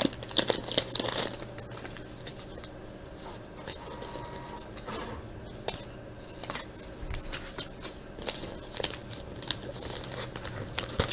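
A baseball card pack's wrapper being torn open and crinkled, with the cards handled: soft rustling and small scattered clicks.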